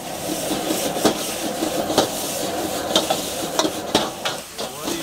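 Metal ladle scraping and clanking against a wok while stir-frying noodles, over a steady sizzle. There are about five sharp clanks, roughly one a second.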